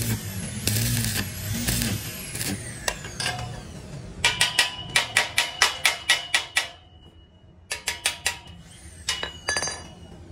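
Stick-welding arc crackling and hissing for the first two seconds or so. Then a small hammer taps on a fresh weld joint of the steel-tube frame to chip off slag: quick runs of ringing metal strikes, about four a second, in three groups with short pauses.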